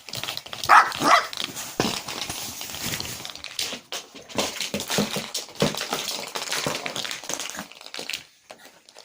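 Chihuahua puppy giving two short high-pitched yips about a second in, followed by a run of irregular scuffling and clicking noises.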